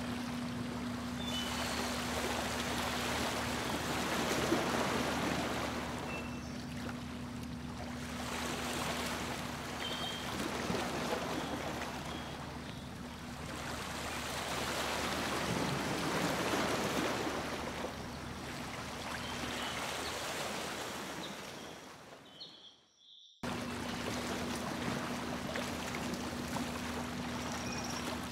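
Motorboat underway with a steady engine hum under the rush of water along the hull, which swells and fades every few seconds. The sound cuts out for about a second near the end.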